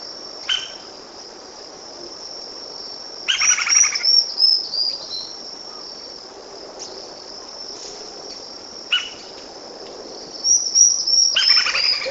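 Lineated woodpecker calling: two fast runs of ringing notes, one a few seconds in and one near the end, with short single notes between them. A steady high-pitched insect drone runs underneath.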